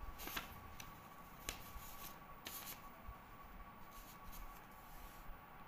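Faint handling sounds of a printed textbook page: light paper rustling and a few soft clicks, the loudest cluster about two and a half seconds in, over a faint steady high-pitched whine.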